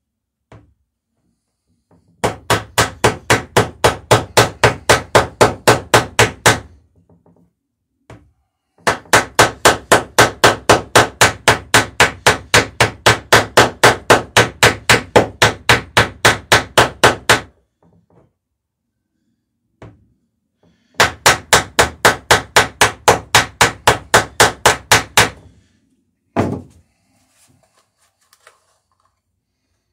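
Hand hammer peening over rivets in a wooden dory's lapped planking: rapid, even taps about five a second, in three long runs with short pauses between.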